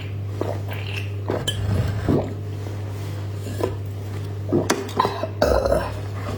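Tableware being handled: scattered light clinks and knocks of cups, bottles or utensils on a table, with a busier cluster of knocks about five seconds in, over a steady low hum.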